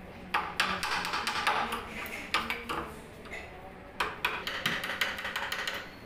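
Hammer striking a wood chisel in a series of sharp, uneven blows, chopping out a recess in a wooden door edge to seat a night latch lock, with a short pause a little past halfway.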